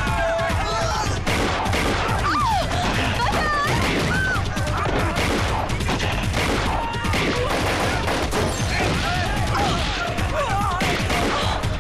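Movie gunfight sound effects: continuous rapid automatic gunfire from submachine guns, with men yelling over it.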